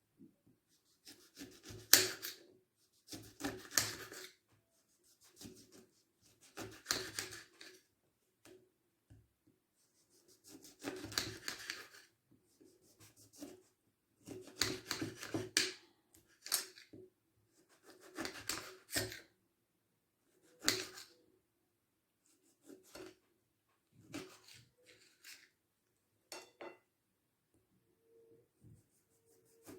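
Kitchen work sounds: repeated scraping and rubbing strokes in short, irregular bouts with quiet gaps between them.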